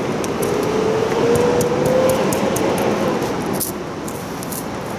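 Heat gun running: a steady rush of blown air with a motor whine that rises slowly in pitch, easing off about three and a half seconds in. It is heating the adhesive on the old windshield's retaining clips to loosen it.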